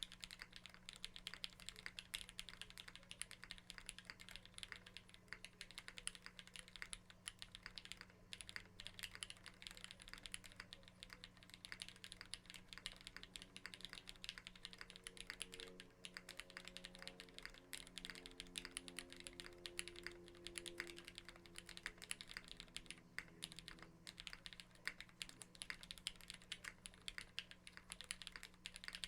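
Custom tenkeyless mechanical keyboard with lubed Cherry MX Black linear switches on an aluminium top-mount plate, with GMK keycaps, being typed on at a steady, fast pace: a dense run of key clacks.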